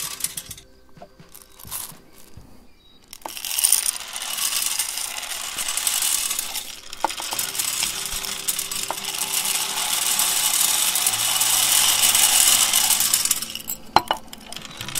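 M&M candies poured from a bowl into a motorcycle's metal exhaust muffler, clattering and rattling against the pipe in a dense, continuous stream for about ten seconds. The pour starts about three seconds in, and near the end it gives way to a few separate clicks as the last candies drop.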